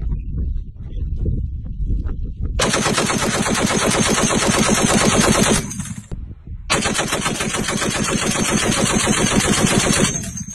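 Belt-fed heavy machine gun firing two long bursts of rapid automatic fire, with a short pause between them, after a couple of seconds of low rumble.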